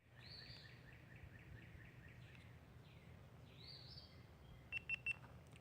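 Faint birds calling: a rapid run of short chirps, a longer arched call, then three short high pips near the end, over a quiet outdoor background.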